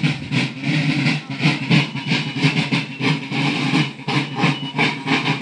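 Drum-and-fife band of a folk marching company playing: a steady drum beat of about four strokes a second with high fife notes above it.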